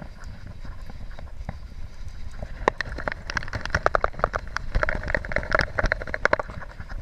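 Fly reel's click-and-pawl ratchet clicking rapidly as the line is reeled in, starting a little before halfway and running in a dense stream to near the end, over a low rumble.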